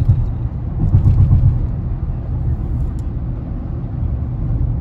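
Steady low rumble of a car driving on a highway, with road and engine noise heard from inside the cabin.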